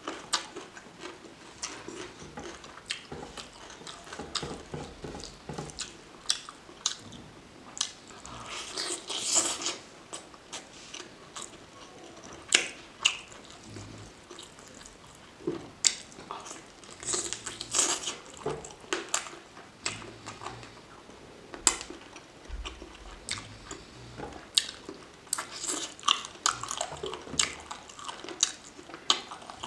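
Close-miked chewing and biting of chicken curry with rice: irregular wet mouth smacks and clicks with occasional crunches, and a few longer noisy bursts about nine and eighteen seconds in.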